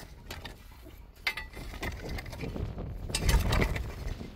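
Scattered knocks and clinks of hard objects being handled, the clearest about a second in and a cluster of them near the end, over a low rumble that swells late on.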